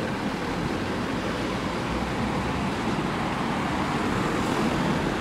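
Steady traffic noise of cars driving past on a multi-lane city street, engines and tyres on the road.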